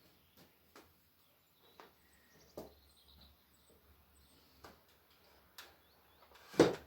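Scattered clicks and knocks of hand tools working a reusable hydraulic hose fitting as it is tightened, the loudest one just before the end. Faint bird chirps sound behind them.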